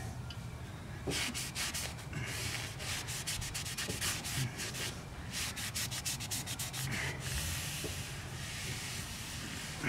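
Cloth towel rubbing and wiping the face of a new brake rotor in quick, repeated rasping strokes, cleaning it before it goes into service.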